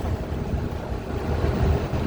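Low, steady cabin rumble of a 2015 Gillig Low Floor CNG transit bus running, its Cummins Westport ISL G engine heard from inside the bus.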